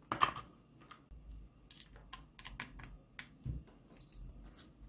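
Scattered light clicks and taps from a circuit board and soldering iron being handled on a work mat, the sharpest click about a quarter second in.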